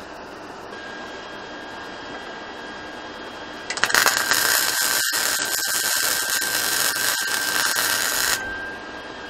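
MIG welder welding the links of a steel chain: a steady crackling sizzle of the arc starts about four seconds in and runs for about four and a half seconds, with a brief break partway, then stops near the end. A faint steady high whine runs underneath throughout.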